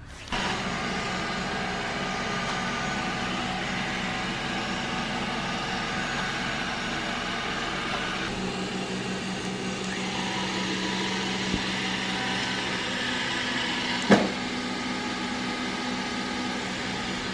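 Xiaomi Mi 1c robot vacuum cleaner running: the steady whir of its suction fan and brushes, with a low hum, comes on suddenly and then holds an even level. A single sharp knock about fourteen seconds in.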